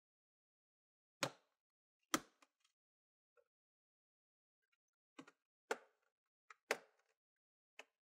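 Plastic retaining clips of an ASUS Transformer Book Flip TP501U's bottom cover snapping loose as a guitar pick is worked along the seam: about six sharp clicks, irregularly spaced, with near silence between.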